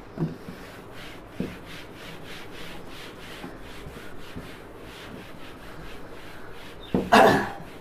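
A green cloth duster wiping a whiteboard clean in quick back-and-forth strokes, about three a second. A brief louder sound comes near the end.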